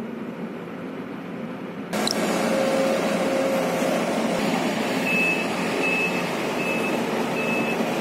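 Diesel engine of a Sumitomo SH210 hydraulic excavator running steadily. About two seconds in it becomes abruptly louder, and from about five seconds in a high warning alarm beeps four times, evenly spaced, like an excavator's travel alarm.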